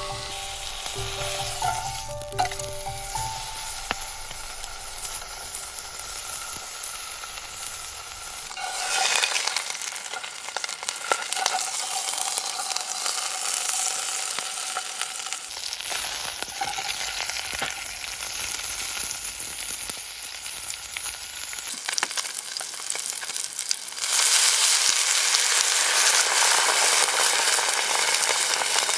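Food sizzling as it fries in a pan, a steady hiss that gets louder for the last five seconds.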